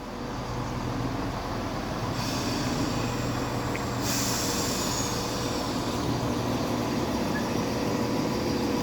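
Class 170 Turbostar diesel multiple unit running into the platform, its underfloor diesel engines humming steadily and growing louder at first. A high hiss joins about four seconds in.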